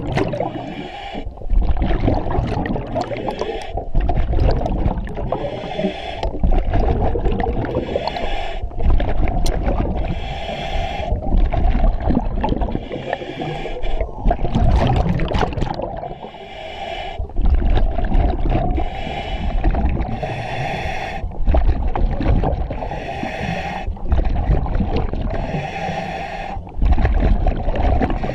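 Scuba diver breathing through a Kirby Morgan EXO-26 full-face mask's regulator underwater: hissing inhalations alternating with gurgling exhaust bubbles, one breath every few seconds.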